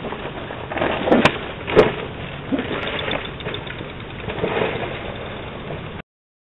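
Bicycle being handled and wheeled off, heard as a few sharp knocks and rattles about a second in over steady hiss from a doorbell camera's microphone. The sound cuts off near the end.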